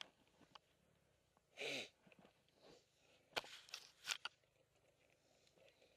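Near silence with no engine running. A short breathy exhale falls in pitch near two seconds in, and about a second and a half later comes a quick cluster of four or five sharp clicks or knocks.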